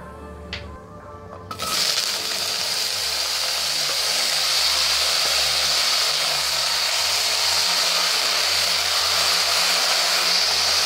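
Diced raw potatoes going into hot oil in a stainless steel wok: a loud, steady sizzle starts suddenly about a second and a half in and keeps on as they fry.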